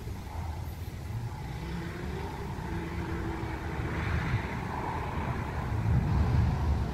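Thunder rolling as a low rumble that slowly builds, loudest near the end.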